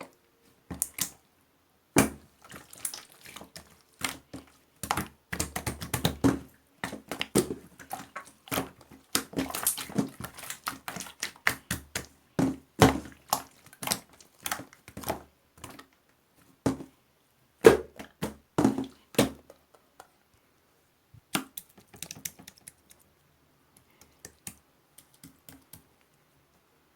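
Marbled slime being squeezed and pressed by hand, giving irregular sticky clicks and pops that thin out and grow quieter over the last several seconds.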